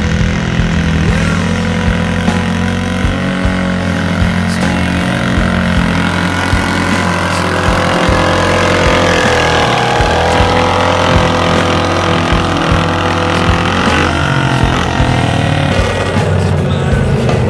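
Garden tractor engine running hard under load while it drags a pulling sled across a dirt track. Its pitch rises and falls through the middle of the pull.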